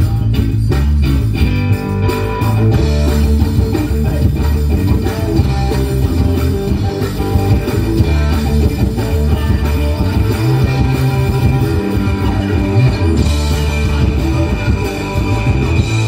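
A live rock band playing an instrumental passage: strong bass guitar lines under guitar and a drum kit, with busy drum and cymbal hits in the first couple of seconds.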